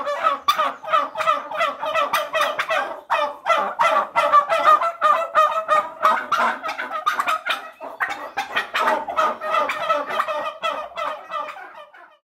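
A flock of domestic turkeys gobbling, many rapid calls overlapping in a continuous chatter that cuts off just before the end.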